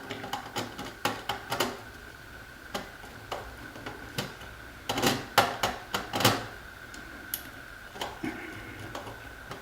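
Irregular small clicks, taps and knocks of a screwdriver and wire ends working the terminal screws of a Honeywell Vista alarm panel, with a cluster of louder knocks about five to six seconds in. A faint steady high tone sits underneath.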